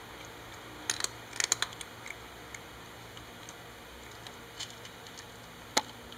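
Cat eating dry kibble from a bowl: irregular sharp crunches and clicks, bunched about a second to a second and a half in, with a single loudest crunch near the end.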